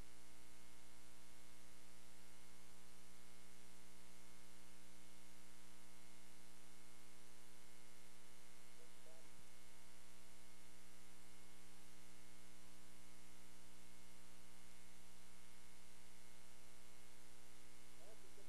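Steady electrical mains hum, with a stack of evenly spaced overtones, takes over the audio track and no game sound comes through. A faint voice breaks through briefly about halfway and again near the end.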